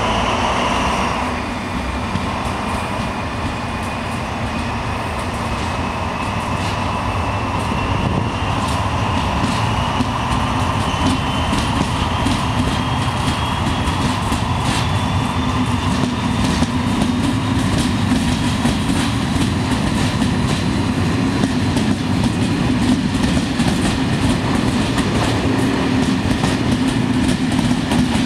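Locomotive-hauled TER Corail passenger coaches rolling past and gathering speed, their wheels clacking over rail joints over a steady rumble. A thin whine rises slowly in pitch as the train speeds up, and a brief wheel squeal fades out about a second in.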